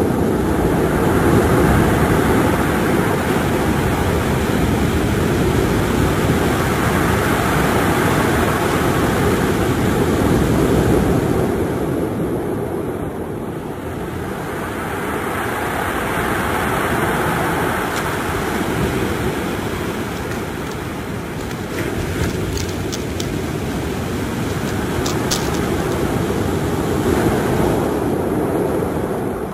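Ocean surf breaking and washing onto a stony beach, the rush swelling and easing with each set of waves, with wind buffeting the microphone.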